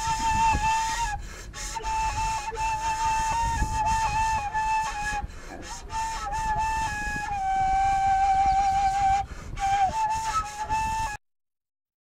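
Background music: a flute-like wind instrument playing a slow melody of long held notes. It cuts off suddenly near the end.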